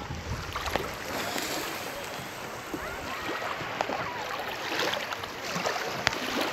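Shallow seawater lapping and washing at the shoreline: a steady wash dotted with many small, sharp splashes and crackles.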